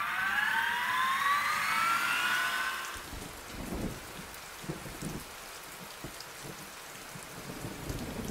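Title-sequence sound effects: a synthesized riser of several tones climbing together, cutting off about three seconds in, then a steady crackling noise with a few low rumbles.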